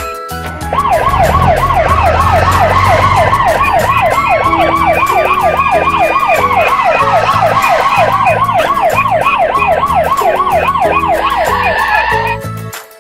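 Police siren sound effect in a fast yelp, about three to four rising-and-falling sweeps a second, over background music. It starts about a second in and cuts off near the end.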